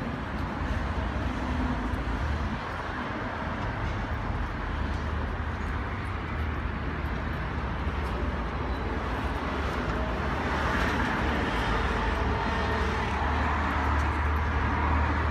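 Steady road traffic noise, a low rumble of cars, growing a little louder about ten seconds in.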